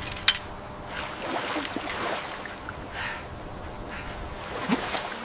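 Water sloshing and lapping, with a sharp click at the start and another about a third of a second in.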